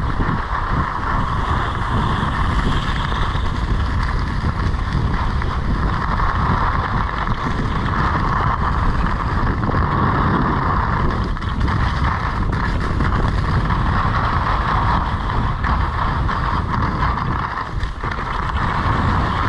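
Skis hissing and scraping on groomed snow during a downhill run, swelling and fading with the turns, under a steady low rumble of wind buffeting the camera microphone.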